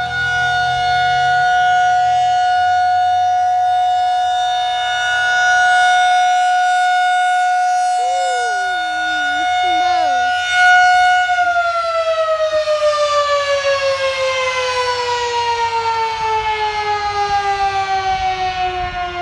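Tornado warning siren sounding one steady high tone with its overtones. About eleven seconds in it begins to wind down, sliding steadily lower in pitch while its loudness pulses evenly, as it shuts off at the end of a one-minute test.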